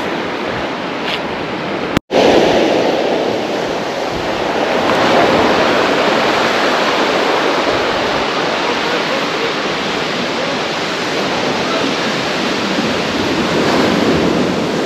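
Steady rush of sea surf breaking on the shore just below. The sound cuts out completely for a split second about two seconds in.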